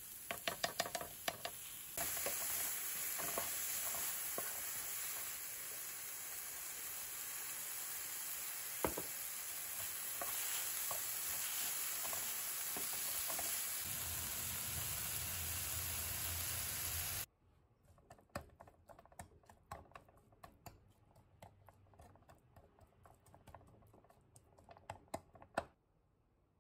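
Bean sprouts sizzling in a frying pan as they are stir-fried, with a wooden spatula scraping and clicking against the pan. About two-thirds of the way in the sizzle stops abruptly, leaving only the spatula's light clicks.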